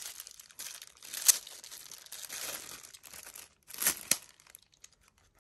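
Clear plastic packaging bag crinkling and tearing as it is slit and pulled open with a utility knife, with a sharp snap about a second in and a second short rustle around four seconds.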